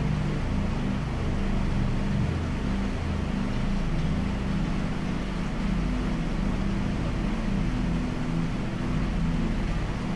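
Heavy rain hissing steadily over a deep, steady rumble.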